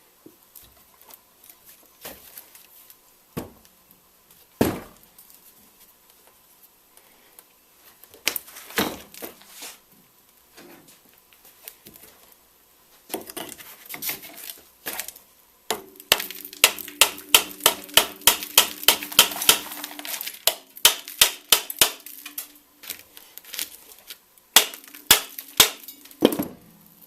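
Tools on metal while the nut on a shock strut assembly is tightened: scattered clinks and knocks, then, about halfway through, a long run of regular sharp clicks, about three a second, with a steady low hum under parts of it.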